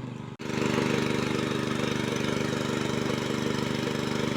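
Small engine running steadily at a constant speed, driving a water pump. It briefly cuts out about half a second in, then runs on unchanged.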